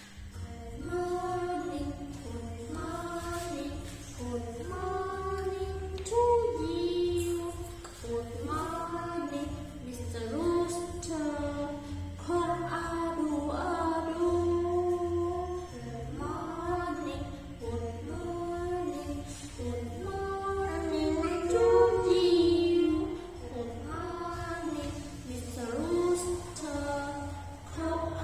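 Children singing a simple English song, with a pitched, held-note melody over a steady low backing beat.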